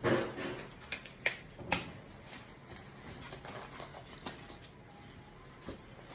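A short rustle, then a handful of sharp clicks and snaps: handling noise.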